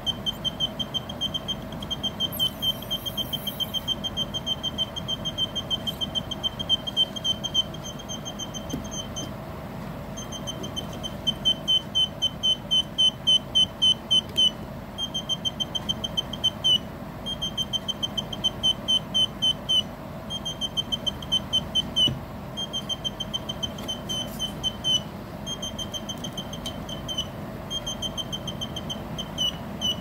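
Electronic bird-whistle circuit chirping through a small buzzer: a rapid string of short, high electronic chirps, several a second, imitating birdsong. It runs unbroken for the first nine seconds or so, then comes in phrases of one to two seconds with brief pauses between.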